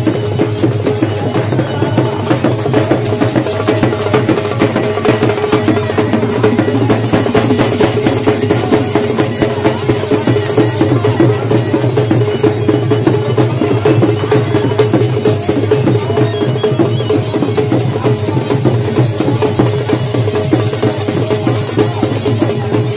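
Folk drums beating a fast, dense, unbroken rhythm, loud and steady throughout.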